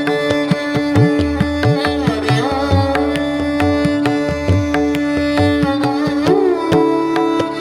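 Indian classical instrumental music. A plucked string melody with sliding notes plays over a steady drone and rhythmic hand-drum strokes whose low tones bend in pitch.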